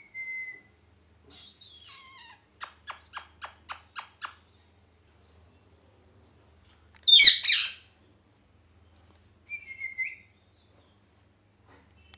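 Ringneck parrot calling in separate short bursts: a brief whistle, a falling harsh call, a quick run of about seven chirps at roughly four a second, then one loud harsh squawk about seven seconds in, the loudest sound, and another short whistle near the end.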